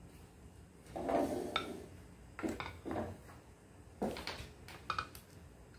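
Serving spoon scooping stew out of a cooking pot and onto a plate, knocking and scraping against the pot: a handful of short, separate clinks and scrapes.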